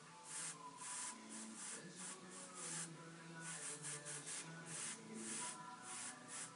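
Airbrush hissing in short, quick bursts, about three a second, as the trigger is pumped on and off.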